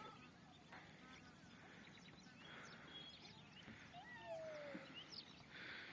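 A flock of waterfowl calling faintly, many overlapping short honking calls scattered throughout.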